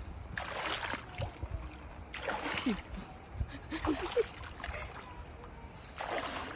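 River water splashing in four short bursts, with a low rumble of wind on the microphone.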